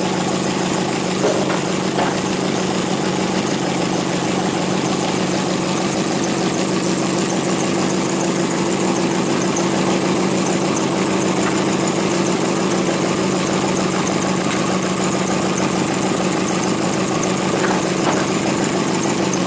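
A hand-built four-cylinder model vacuum engine (flame-sucker), fired by alcohol burners, running steadily.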